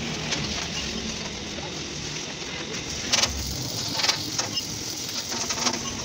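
Electric arc welding along the seam of a galvanized steel water-heater tank: a steady sizzling hiss, with a few sharp clicks about three, four and nearly six seconds in.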